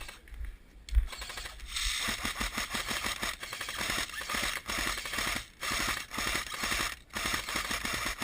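Airsoft electric gun firing full-auto in three long bursts: a rapid mechanical rattle of BBs being fired. There is a single knock about a second in.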